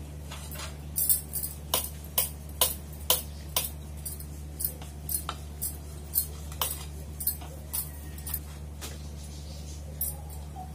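Wooden rolling pin clacking against the kitchen counter as roti dough is rolled back and forth, about two knocks a second, stopping near the end with one last knock. A steady low hum runs underneath.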